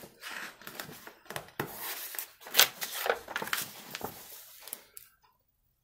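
Paper rustling and crinkling as a page of a picture book is turned, a run of handling noises with a few sharper snaps of the page, stopping near the end.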